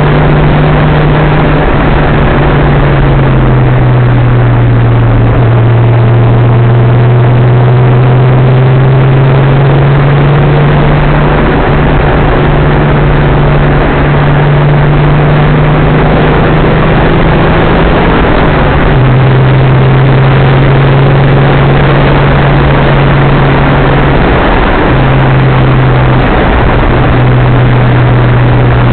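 Datsun 280ZX Turbo's turbocharged straight-six heard from inside the cabin while driving, a loud steady engine drone that steps down and back up in pitch a few times with the throttle, over tyre and wind noise.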